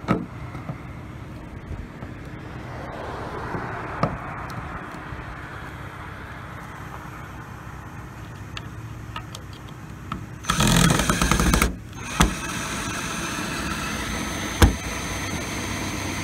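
Small clicks and taps of screws and a hand screwdriver on a plastic cab light lens, over steady background noise. About two-thirds of the way in comes a loud harsh burst lasting about a second, and after it a steady engine-like hum.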